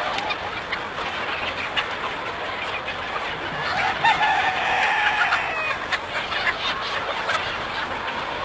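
A large flock of desi chickens clucking and calling all at once in a steady din, with one long rooster crow about three and a half seconds in.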